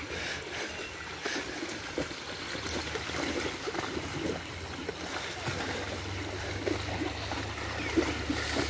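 Dogs wading through a shallow stream, water splashing and sloshing irregularly around their legs over the steady running of the stream.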